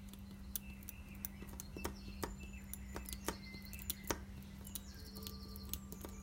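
Irregular small sharp clicks and taps of repair tools working on an iPhone 6's battery adhesive, over a steady low hum, with a few short high chirps.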